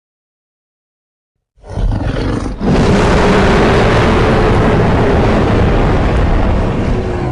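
Silence, then about a second and a half in a custom-made monster roar sound effect starts abruptly: a short opening burst, then a loud, sustained, rough roar with a deep rumble underneath that holds on.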